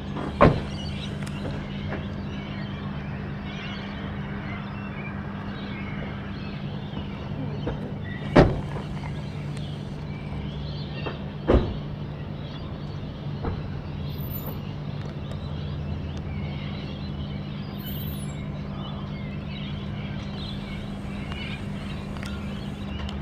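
Steady low mechanical hum, with three sharp knocks: about half a second in, about eight seconds in, and about eleven and a half seconds in.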